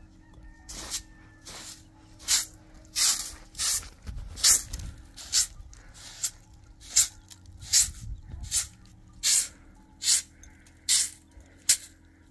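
Short hand-held straw broom sweeping a wool carpet: a brisk swish with each stroke, a little more than one stroke a second.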